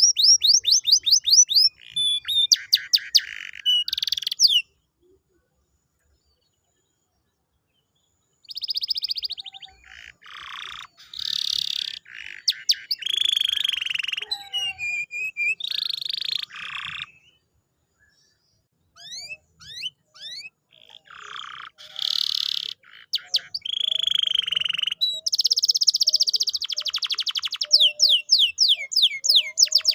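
Domestic canary singing: phrases of fast trills and rapid runs of repeated high notes. The song breaks off twice, for about three seconds and then for a second or two.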